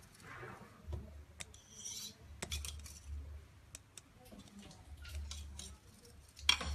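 Scattered light clicks and clinks of a wooden handloom being worked for gold-brocade silk, with a few soft low thumps and a louder clatter near the end.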